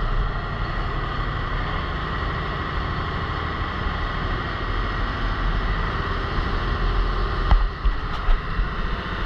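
Motorboat running at speed while towing a parasail: steady engine drone mixed with rushing water from the wake and wind. A few brief thumps come about three-quarters of the way through.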